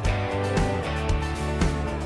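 Background country music with strummed guitar and a steady beat.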